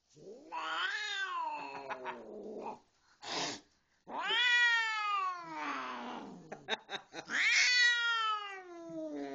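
Siamese cat yowling: three long, drawn-out yowls, each rising then falling in pitch, with a short noisy burst between the first and second. An agitated cat upset at being held at the vet's.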